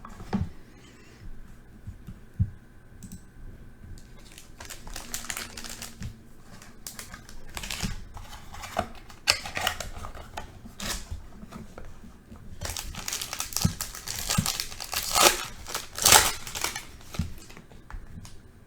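Plastic wrapping on a sealed mini box of trading cards crinkling and tearing as it is unwrapped by hand, in irregular crackling bursts that grow denser and louder in the last few seconds.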